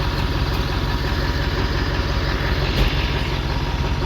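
Pickup truck engine idling steadily, with a brief thump just under three seconds in.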